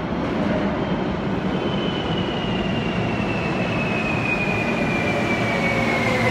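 R143 subway train pulling into the station: a steady rumble that grows slowly louder, with a high motor whine that slowly falls in pitch as the train slows.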